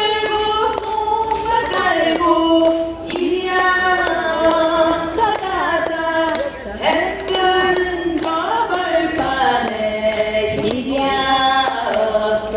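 A man singing into a microphone over the hall's loudspeakers, in long held notes that glide between pitches.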